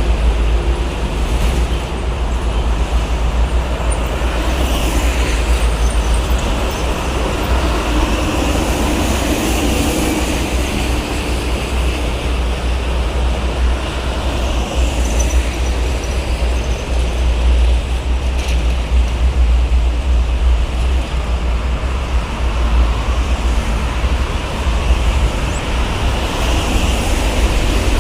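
Steady heavy toll-road traffic, with trucks and buses going past in a continuous rumble of engines and tyres and no horns standing out.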